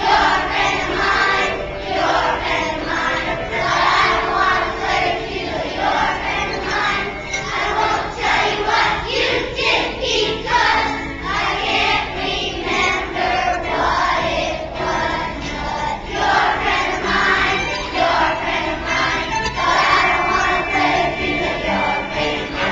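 A group of young children singing a song together, phrase after phrase without a pause.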